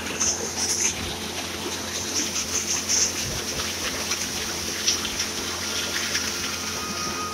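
Water running and splashing over rock, a steady trickling rush with no break.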